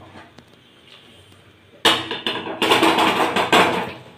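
Metal spatula scraping and knocking against a wok as cooked vegetables are tipped out of it into a pot: a quiet start, then a quick run of clattering scrapes from about two seconds in.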